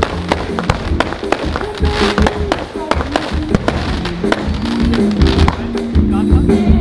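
Music from a fireworks display's loudspeakers, with many short, sharp fireworks bangs and crackles throughout.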